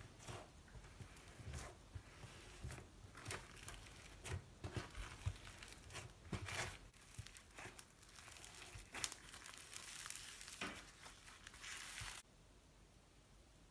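Slime being squished and stretched by hand, giving faint, irregular crackling and popping clicks. The sound stops abruptly near the end.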